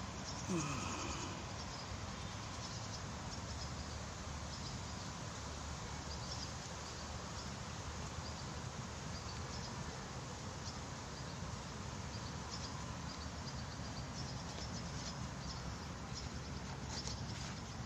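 Steady outdoor background noise, with a short falling squeak about half a second in and a few faint clicks near the end.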